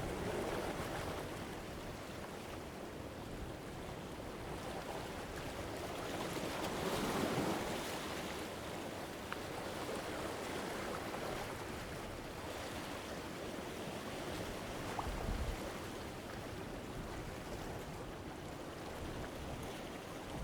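Medium ocean waves washing against rocks: a continuous surf wash, with a bigger wave swelling and breaking about seven seconds in.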